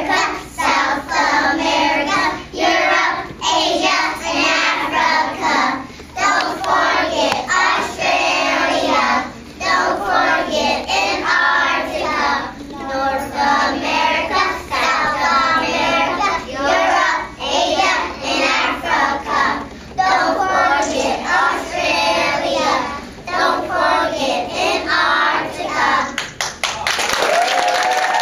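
A group of preschool children singing a song together, with hand claps through it. Applause breaks out near the end.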